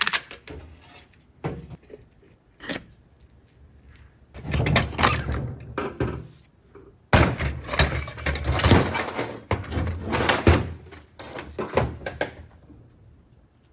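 Metal transmission parts clunking and rattling as they are handled: a few separate knocks, then two long stretches of clattering.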